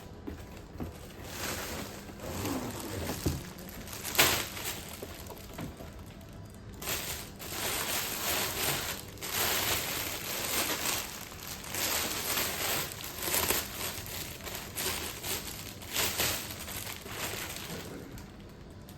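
Plastic packaging crinkling and rustling as it is handled, in uneven bursts, with one sharp crackle about four seconds in.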